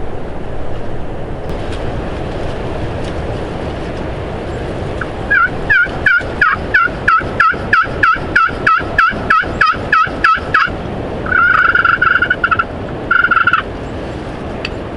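A long run of about fifteen quick turkey yelps, roughly three a second, followed by two longer drawn-out notes, over steady wind noise buffeting the microphone.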